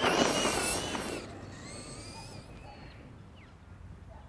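Traxxas Rustler RC truck's electric motor whining at full throttle, with its tyres rushing through grass as it accelerates, loudest in the first second and fading as it drives away. Faint bird chirps follow.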